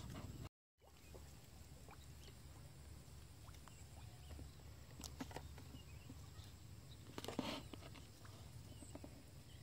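Faint outdoor background with a low steady rumble and a few scattered soft clicks; the loudest sound is a brief scratchy noise about seven seconds in.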